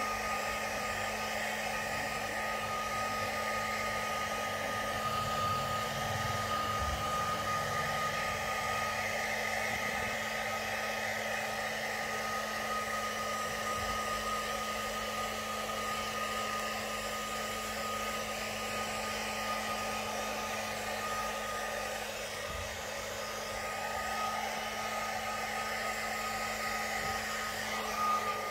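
Handheld hair dryer running steadily, blowing on a wet kitten's fur: an even rush of air with a steady hum and a higher whine.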